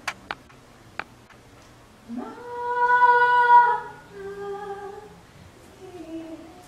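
A singing voice slides up into a long held note that swells loud, then drops to a lower held note and trails off in softer gliding notes. A few sharp clicks come in the first second.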